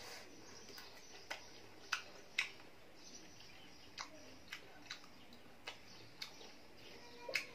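Watermelon being chewed close to the microphone: faint wet mouth smacks and clicks at irregular intervals.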